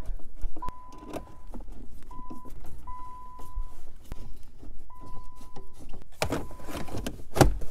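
Clicks, taps and rustling of hands and a screwdriver refitting plastic trim under a car's dash, with two louder knocks late on. A thin, high steady tone starts and stops several times.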